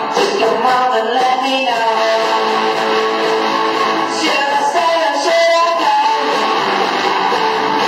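Live rock band playing a song, with strummed guitar to the fore and a voice singing along.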